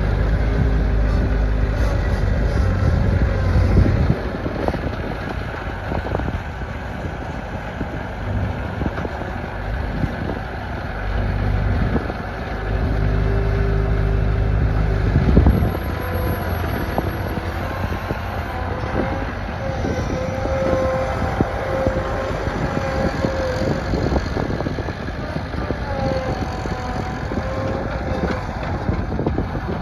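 Bobcat 773C skid-steer loader's diesel engine running, pulling harder with a deep rumble for a few seconds at the start and again about twelve seconds in, then running lower and steadier with a faint whine.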